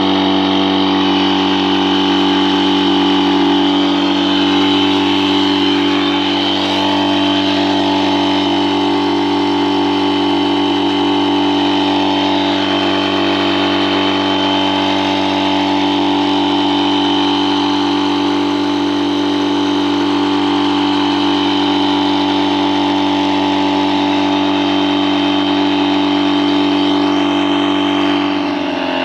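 Electric air pump humming steadily with a high whine, inflating the air beams of a Kampa inflatable awning.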